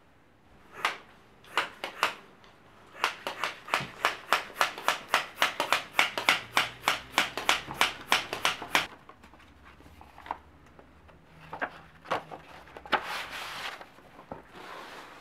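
Bicycle wheel being worked on: a steady run of sharp clicks, about five a second, lasting some six seconds and then stopping. A few scattered knocks come before and after it.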